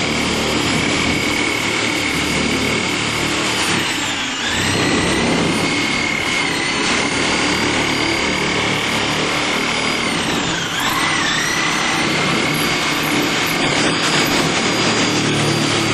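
Electric power tool cutting a hole in a furnace's sheet-metal cabinet, its motor whining at a steady high pitch that sags briefly twice, about four and eleven seconds in, as it bogs down under load.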